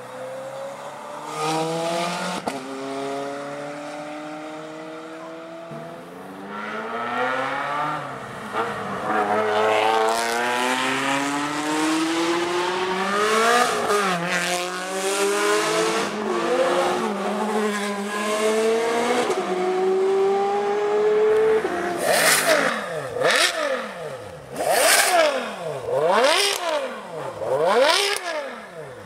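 Ferrari sports cars accelerating hard past, engine pitch climbing and dropping back at each upshift. In the last few seconds a standing Ferrari 599 GTO's V12 is revved in about five sharp blips, each rising and falling quickly.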